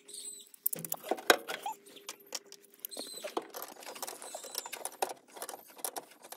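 Close handling noise of hands working on engine-bay wiring: a busy run of small clicks, scratches and rattles of wires and metal parts, with one sharp click a little over a second in.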